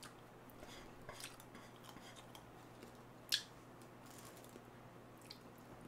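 Chopsticks clicking faintly against a frying pan as noodles are picked up, with one sharper click about three seconds in.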